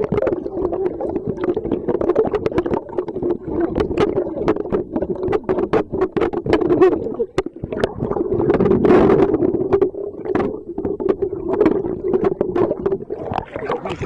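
Water sloshing and splashing around a camera in a waterproof case as it moves underwater and up to the surface, heard muffled, with many sharp clicks over a steady hum.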